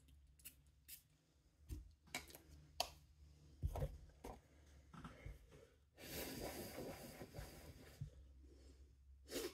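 A few light clicks and knocks from handling a glass perfume bottle. About six seconds in comes a long sniff of about two seconds as the freshly applied fragrance is smelled on the skin, followed by a shorter sniff near the end.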